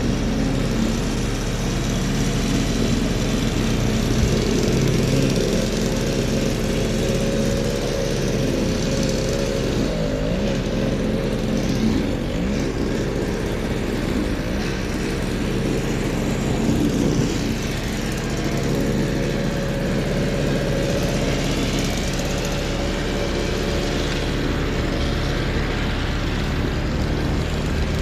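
An engine running steadily, with a steady rushing noise over it.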